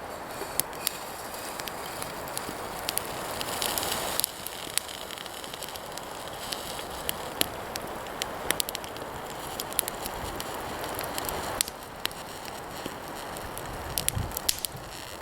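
Wood campfire crackling, with scattered sharp pops over a steady hiss that is louder for the first four seconds and eases near the end.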